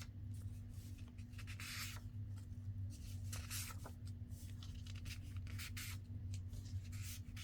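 Paper and cardstock rustling and sliding in short, scattered scrapes as the tags and inserts are handled and pulled from the pockets, over a steady low hum.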